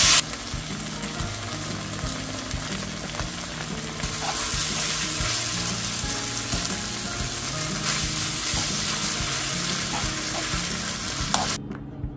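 Food sizzling as it fries in a hot pan and is stirred, a steady hiss that cuts off suddenly near the end.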